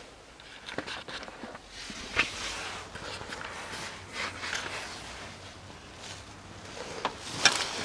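Rustling and light clicks and knocks of hands handling things under a car's dashboard, with sharper clicks about two seconds in and near the end.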